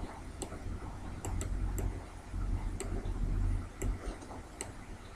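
Computer mouse clicking, about half a dozen short, sharp clicks at irregular intervals, over a steady low hum.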